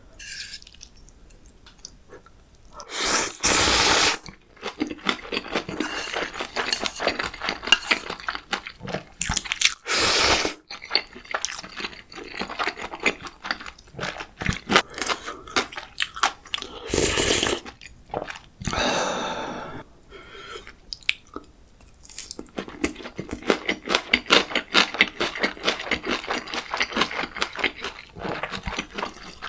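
Close-miked eating of ramyeon and gimbap: continuous wet, crackly chewing, broken by a few louder slurps lasting about a second each, around 3, 10 and 17 seconds in.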